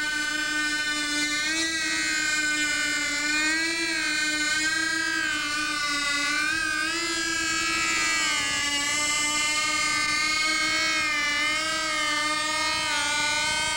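Homebuilt VTOL aircraft's engine running steadily as it hovers low: a buzzing tone whose pitch wavers slightly up and down.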